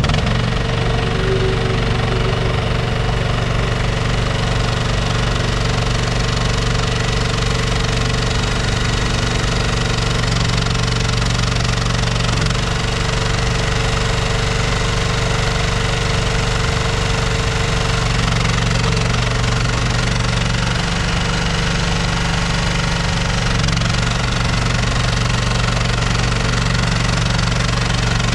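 Engine of a 2025 AGT YSRT14 tracked ride-on mini skid steer running steadily at an even speed, with no revving.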